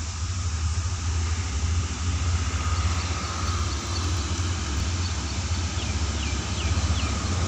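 Diesel locomotive hauling a passenger train as it approaches from a distance: a steady low engine rumble that grows slightly louder near the end.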